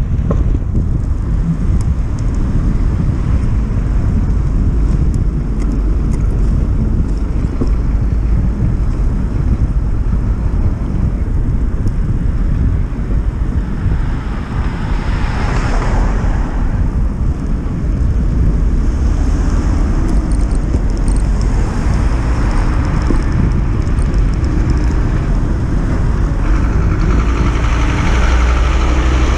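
Wind buffeting the microphone of a camera on a moving bicycle, a steady low rumble, with motor traffic on the road; one vehicle swells up and fades about halfway through.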